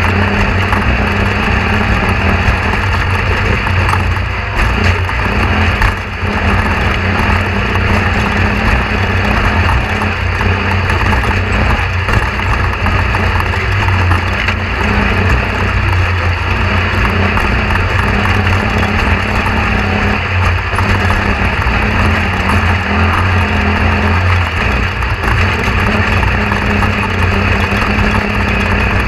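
A loud, steady mechanical drone like a running engine, holding level without a break.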